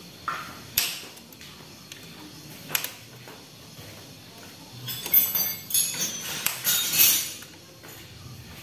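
Metal hand tools clinking and rattling against the water pump parts of a Yamaha R15 engine during disassembly. A few sharp clicks come early, then a run of louder, ringing metallic clinks about five to seven seconds in.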